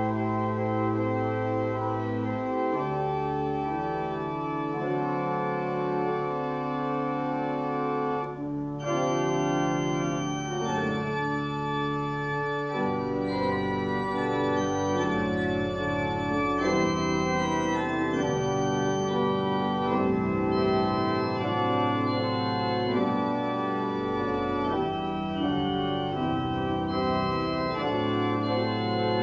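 Church organ played solo: sustained chords moving over held low bass notes, with a brief break between phrases about eight seconds in.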